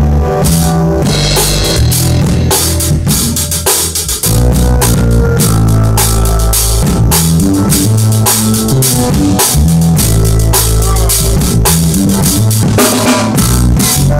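Drum kit played live in a steady groove, with bass drum, snare and cymbals, over a pitched bass line, and a brief drop about four seconds in.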